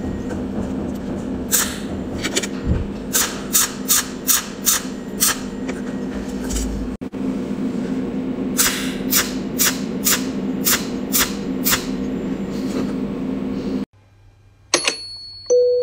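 Cold welding machine (pulse spot welder with a tungsten needle) firing runs of sharp snapping pulses, about two to three a second, each pulse a tiny spot weld, over a steady hum. Near the end the hum cuts off and piano music begins.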